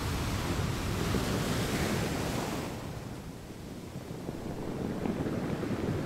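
Ocean surf: a wave washes in with a broad hiss that fades after about three seconds, then builds again near the end.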